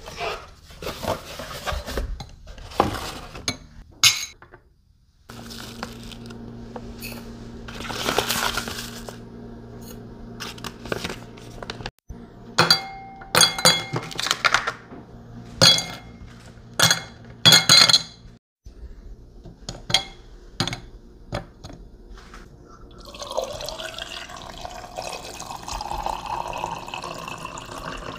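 A string of drink-making sounds: a cardboard box lid flipped open, clinks and knocks of a spoon, ice and blackberries going into a tall drinking glass, with a low steady hum for a stretch in the middle. Near the end, water is poured over the ice in the glass.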